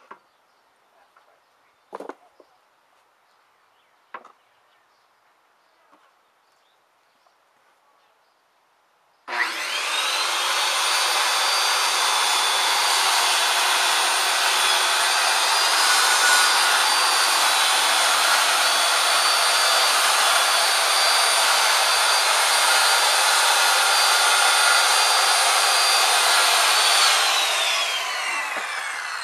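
Corded circular saw starting abruptly about nine seconds in and cutting through a sheet of wood for some eighteen seconds, a steady high whine over the cutting noise. Near the end the motor winds down, its whine falling in pitch. Before the saw starts there are only a couple of faint clicks.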